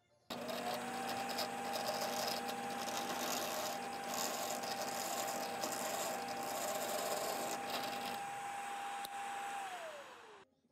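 Power drill running at a steady pitch while its bit bores into wood, with a rasping cutting noise over the motor whine. It switches on abruptly just after the start and winds down near the end, the whine falling in pitch before it stops.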